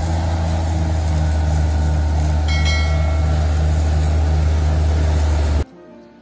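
Bulldozer diesel engine running with a steady low rumble and a slow, even throb. A brief high-pitched tone sounds about two and a half seconds in, and the engine sound cuts off suddenly shortly before the end.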